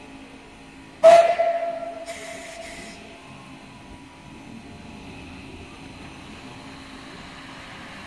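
Steam locomotive's whistle gives one short blast about a second in, its tone dying away over a second or two, followed by a brief hiss of steam.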